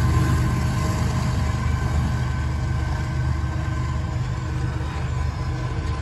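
Diesel engine of a freight train's rear locomotive droning steadily as it moves away, slowly fading.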